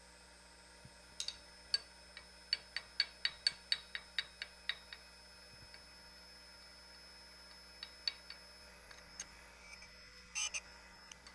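Sharp metallic clicks from the tilting work-holding fixture on a surface grinder as its angle is reset: a quick run of about a dozen evenly spaced clicks, about five a second, then a few single clicks and a short clatter near the end. The grinding wheel is not running.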